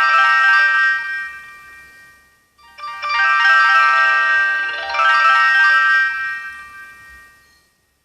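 Samsung GT-E1272 ringtone playing from a Samsung Gusto 3 phone's speaker: a ringing melodic phrase fades, starts again about two and a half seconds in and once more about five seconds in, then dies away near the end.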